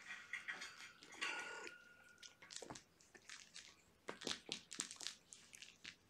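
Mother cat licking and grooming a kitten close to the microphone: faint wet clicks and smacks of her tongue, with a brief high squeak about a second in.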